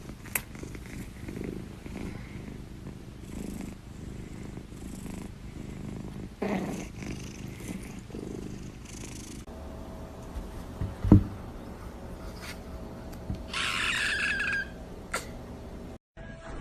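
Domestic cat purring close up, the purr swelling and fading with each breath. A single sharp knock comes about eleven seconds in, and a short rustling burst follows a few seconds later.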